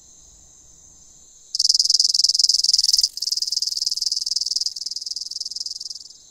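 High-pitched insect chirring, a rapid pulsing trill that starts suddenly about a second and a half in, breaks off for an instant near the middle, then resumes and fades out near the end, over a faint steady high insect hum.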